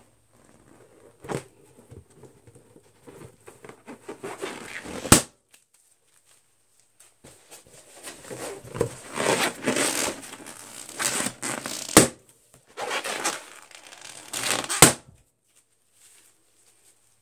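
Latex balloons being rubbed, squeezed and scratched with fingernails, making rubbery squeaks and rustling, each ending in a loud, sharp pop; three loud pops several seconds apart, with a smaller snap early on.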